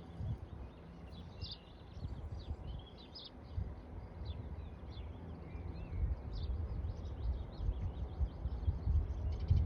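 Small birds chirping and twittering throughout, over a low rumble that rises and falls, swelling again near the end.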